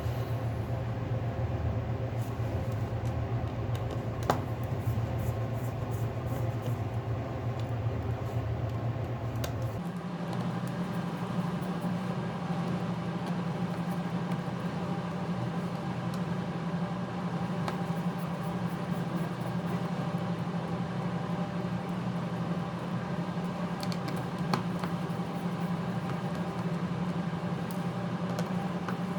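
Steady machine hum whose low tone steps up in pitch about ten seconds in, with a couple of faint clicks.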